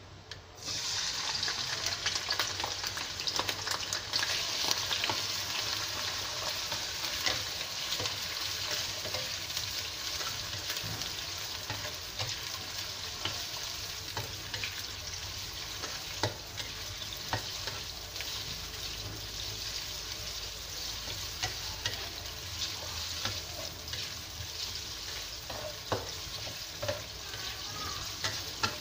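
Raw prawns going into hot oil in a wok and sizzling from about half a second in, then frying steadily while a spatula stirs them, with scattered clicks of the spatula against the pan.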